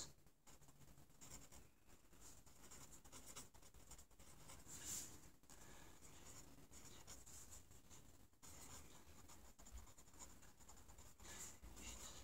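Faint scratching of a mechanical pencil writing on a pad of lined paper, in short irregular strokes.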